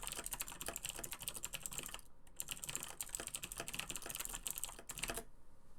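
Fast typing on a Razer BlackWidow Chroma mechanical keyboard with Razer Green clicky switches: a dense run of sharp key clicks. There is a brief pause about two seconds in, and the typing stops about five seconds in.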